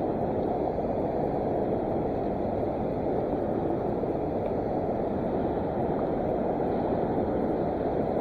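Steady rushing of the Boise River running high, an even noise without breaks.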